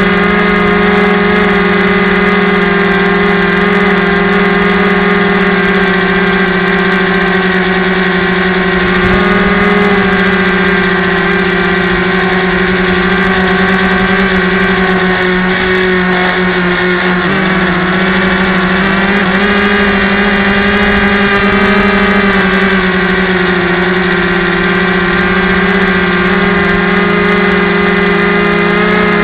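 Electric motor and propeller of a Yellow Bee RC trainer plane running in flight, heard from a camera mounted on the plane: a loud, steady hum. About two-thirds of the way in, the pitch briefly wavers and dips, then settles again.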